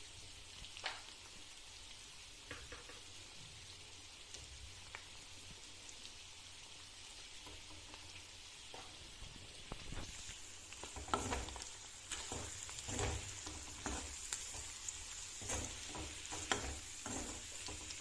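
Boiled potato pieces frying in oil in a kadhai, with a faint sizzle. About ten seconds in, the sizzle grows louder and a steel ladle starts stirring, scraping against the pan again and again.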